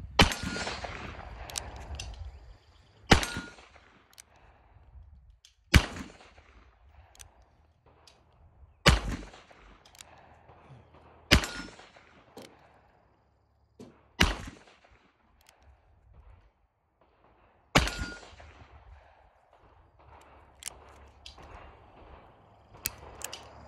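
Smith & Wesson .357 Magnum revolver fired seven times, one shot every two to three seconds, each a sharp crack that trails off in an echo. A few light clicks follow near the end.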